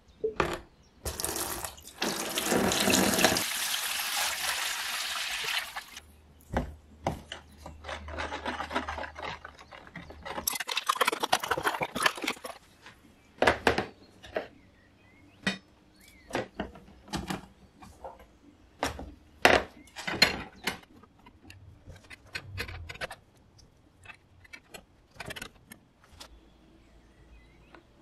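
Water poured from a watering can into a plastic tub for about four seconds, then a shorter second pour, filling an electrolysis rust-removal bath. After that come scattered sharp clicks and knocks as thin steel rods and rusty metal pieces are set on and into the plastic tub.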